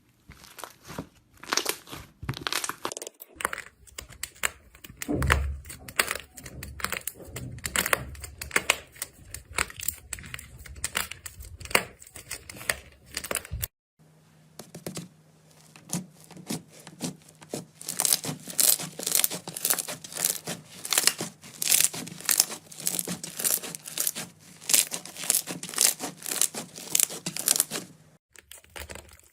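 Slime being squeezed and stretched by hand, giving a dense run of crackling, tearing and popping sounds. It breaks off briefly about fourteen seconds in, then a second run of sharper, louder pops follows.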